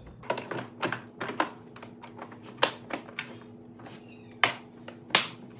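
Lid of a hard plastic waterproof case being shut and its latches snapped closed: a string of irregular sharp clicks and knocks, plastic on plastic.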